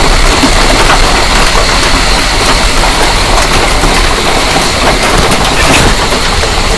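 Heavy hail falling hard and steadily: a dense, loud clatter of many small impacts.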